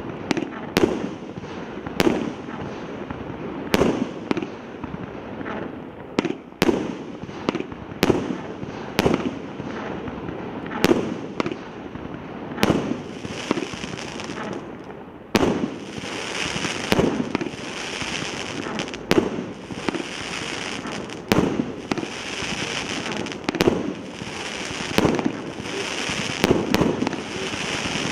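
A 300-shot consumer firework cake firing its shots one after another, a sharp bang roughly every second. From about halfway through, the bursting stars add a continuous crackling hiss between the bangs.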